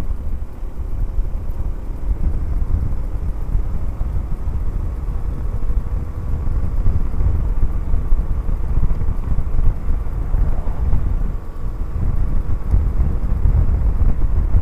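Wind rumbling on the microphone while riding a Honda C90 Cub, with its small four-stroke single-cylinder engine running steadily underneath.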